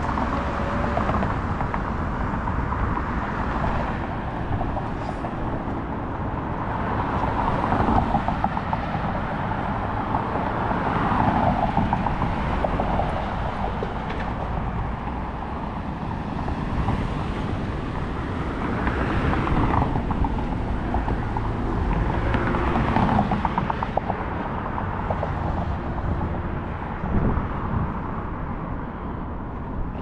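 Outdoor city ambience with road traffic, growing louder several times as vehicles pass.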